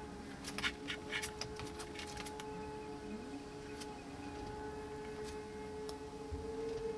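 Light clicks and small rattles of electrical wires being handled and fitted into a small automatic-start module, mostly in the first couple of seconds with a few later, over a quiet steady sustained tone.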